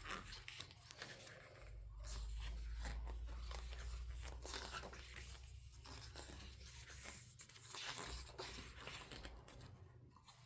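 Faint paper rustling and crackling as a K-pop album's photobook pages are handled and turned. A low rumble sits underneath from about two to seven seconds in.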